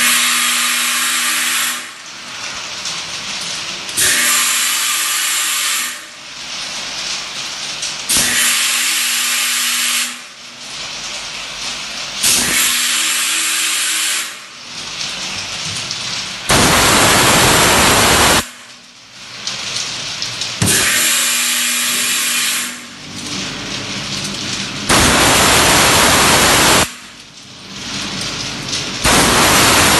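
Linear vial washing machine running its wash cycle: spray jets hiss in bursts of about two seconds, eight times at about four-second intervals, with a steady machine hum between them. The later bursts are louder and fuller.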